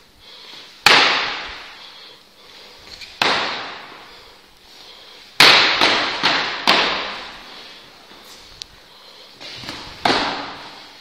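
Plastic practice swords striking during sword sparring: sharp clacks, each ringing out in the echo of a large hall. Single hits about a second in and near three seconds, a quick flurry of four around five to seven seconds, and one more near the end.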